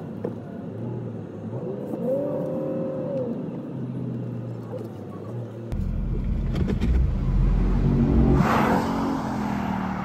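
Car engine running and revving, heard from inside the car, with a short rise and fall in pitch about two seconds in. About six seconds in the sound cuts to a louder, deeper engine note, with a brief rushing burst of noise near the end.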